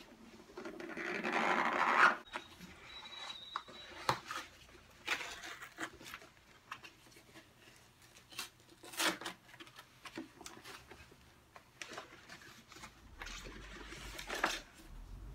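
Cardboard and paper packaging being handled and pulled open by hand, with rustling and scattered clicks and taps. About a second in, a louder rasping rush builds and stops sharply, like paper or tape being torn away.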